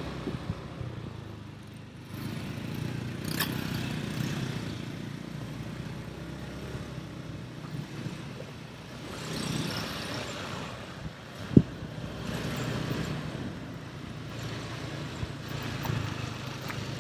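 Vehicle on the move: steady engine and road rumble that swells and eases, with one sharp knock about eleven and a half seconds in.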